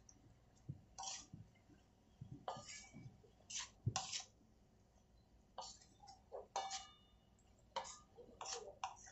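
Wooden spatula stirring and scraping chopped spring onions around a metal kadhai: about a dozen short scrapes and knocks at irregular intervals, often two or three close together.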